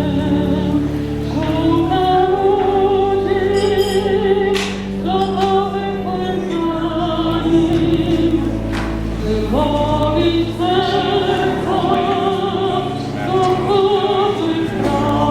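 A choir sings a hymn, held notes with vibrato changing every second or two, over steady sustained low accompanying notes.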